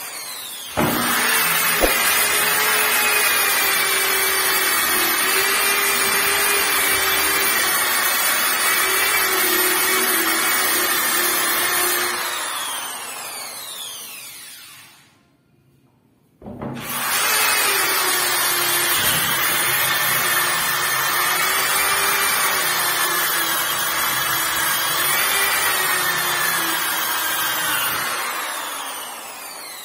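Electric orbital sander sanding a painted wooden door. It starts about a second in and runs steadily, then is switched off and winds down with a falling whine near the middle. It starts again a moment later and winds down once more near the end.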